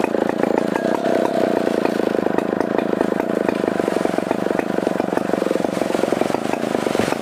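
Stihl 070 two-stroke chainsaw engine running steadily with a fast, even firing pulse.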